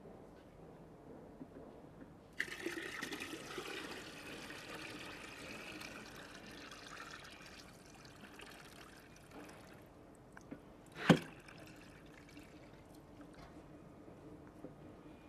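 Water pouring from the tilted bowl of an Ishikawa-type stirring mortar grinder into a plastic tub. It starts suddenly a couple of seconds in with splashing and tapers off by about ten seconds. About eleven seconds in comes a single sharp knock, the loudest sound.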